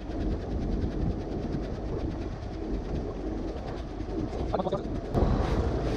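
Steady low rumble of a fishing boat's engine running, with wind and water on the microphone and a faint even clatter through it. It gets louder a little after five seconds.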